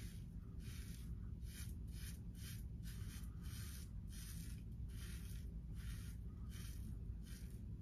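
Henson safety razor with a Feather double-edge blade scraping through lathered beard stubble on the neck. It goes in short, even strokes, about two a second.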